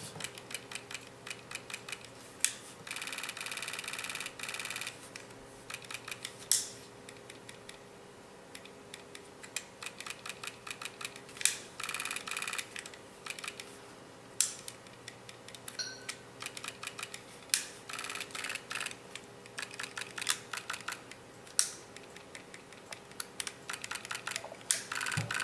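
Scattered sharp clicks and knocks of plastic and metal parts as an airsoft M4 rifle is handled and put back together, with a few short stretches of rapid rattling clicks. The rifle's battery and wiring are being packed into the stock.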